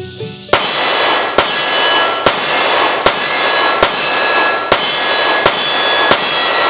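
Remington R51 9mm semi-automatic pistol firing eight shots at an even pace, a little under one a second, with +P ammunition. Each shot is followed by a ringing that carries into the next and fades after the last shot.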